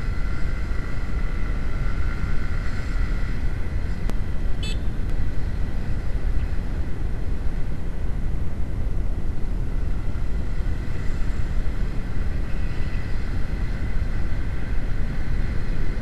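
A Honda CB150R's single-cylinder engine running as the motorcycle rides along, heard through heavy wind rush on an action camera's microphone. A brief high-pitched chirp sounds about four and a half seconds in.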